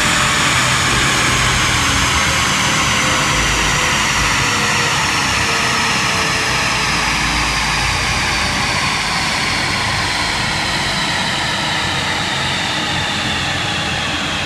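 BMW M4's drivetrain and the chassis dyno rollers spinning down after a power run: a high whine that falls slowly and steadily in pitch over a steady rushing noise, getting slightly quieter.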